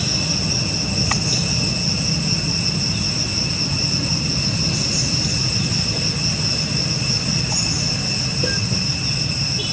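Insect chorus: a steady, unbroken high-pitched shrill in several tones at once, over a continuous low rumble.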